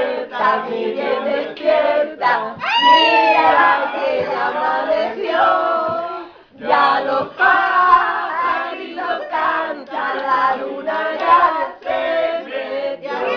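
A woman singing loudly, breaking off briefly about six and a half seconds in.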